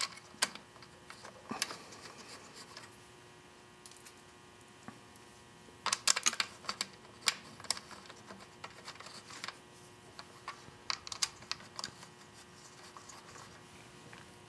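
Clicks and taps of plastic and small metal parts being handled as the recoil starter housing is fitted back onto a Honda GX31 engine. The clicks come scattered, with a quick cluster of sharp ones about six seconds in.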